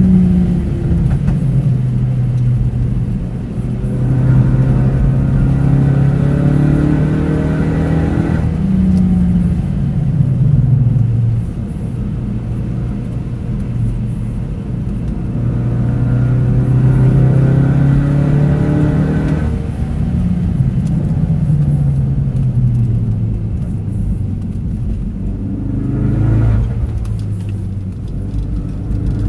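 Ford Focus RS engine heard from inside the cabin, climbing in pitch under acceleration and falling away as the car brakes for corners, several times over. The pitch drops abruptly at about 8 and 19 seconds in, and climbs again near the end.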